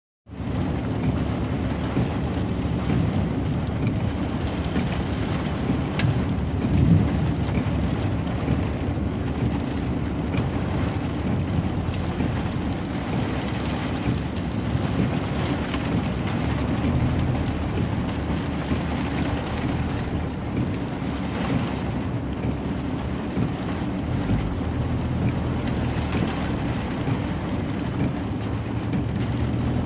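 Heavy rain and hail falling steadily, a continuous hiss over a strong low rumble.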